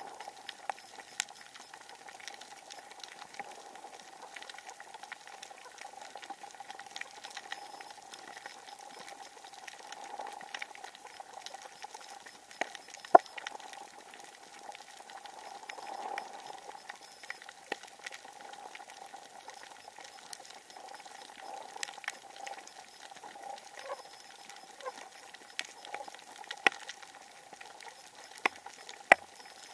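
Underwater coral-reef ambience: a constant crackle of small sharp clicks, with a few louder snaps, over a steady hum.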